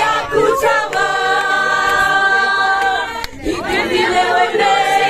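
A church youth choir of men and women singing together, holding a long chord, breaking off briefly about three seconds in, then taking up another held chord.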